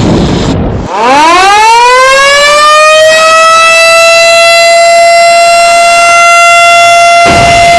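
Siren winding down to a low point about a second in, then winding back up over a couple of seconds to a steady, loud high wail. A rushing noise joins it near the end. It is the siren sounded for Indonesia's Independence Day commemoration.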